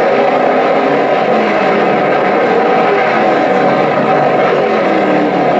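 Late model stock car engines running at racing speed around a short oval, a steady dense engine drone as several cars lap the track.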